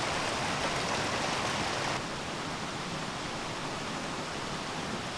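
Steady rushing of water from a rocky mountain stream, dropping slightly in level about two seconds in.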